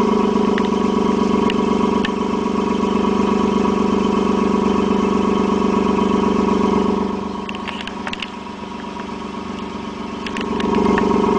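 Car engine idling steadily under the car, an unchanging drone. It fades somewhat for a few seconds past the middle, then comes back up near the end.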